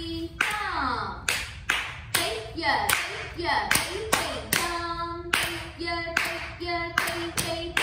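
Bare feet stamping in time on a hard floor in Bharatanatyam thattadavu footwork, about two sharp slaps a second. Between the strikes a voice chants the rhythm syllables.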